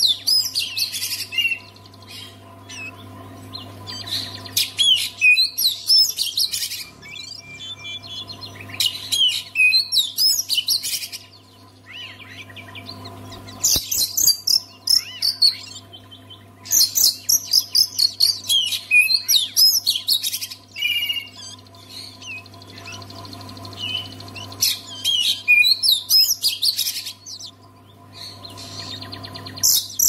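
Oriental magpie-robin (kacer) singing: loud bursts of fast, varied whistled and chattering phrases, each lasting a few seconds with short pauses between, over a faint steady low hum.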